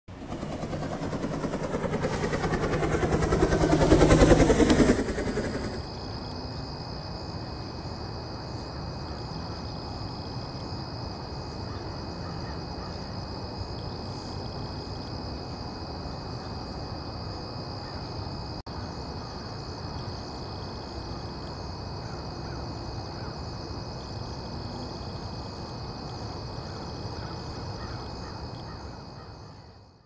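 A loud rushing noise swells to a peak about four seconds in and breaks off. Then a steady waterside background follows, with a continuous high-pitched drone of insects.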